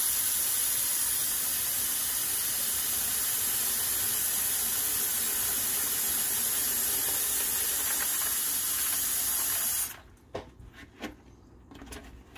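Kitchen faucet running cold water into a plastic tub of pumpkin seeds in a stainless steel sink: a steady rush that cuts off suddenly near the end as the tap is shut. A few light knocks follow.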